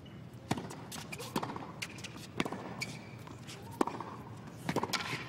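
Tennis rally on a hard court: the serve, then the ball struck by rackets and bouncing on the court, a string of sharp pops at irregular intervals over a hushed crowd.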